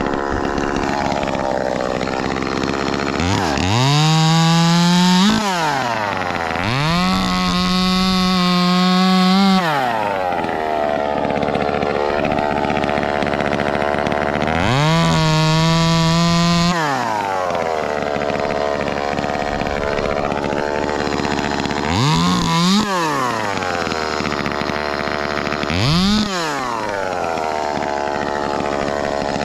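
Echo 2511T top-handle chainsaw revving up to full throttle three times, held for two to three seconds each before dropping back, with two short throttle blips near the end. It idles or runs lower between the revs.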